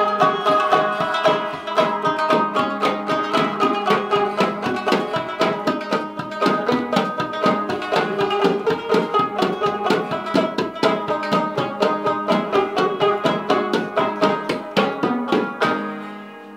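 Rubab plucked in fast runs of notes, with hand drumming on a metal tin keeping a steady beat. The music fades out near the end.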